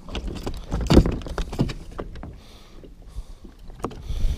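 Irregular knocks and thumps as a muskie is handled and laid onto a measuring board on a boat's floor, the loudest about a second in, over a low rumble of wind and water.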